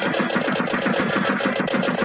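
Eerie soundtrack noise: a fast, even, machine-like pulsing of about ten beats a second, with faint high whistling tones gliding above it.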